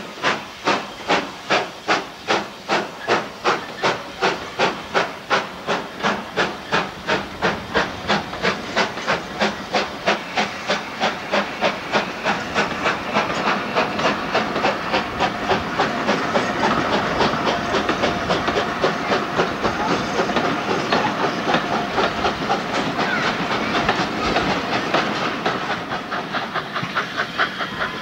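Steam locomotive pulling away with a train of coaches: sharp exhaust chuffs about two or three a second, quickening as it gathers speed. In the second half the chuffs fade into the steadier running noise of the coaches rolling past on the rails.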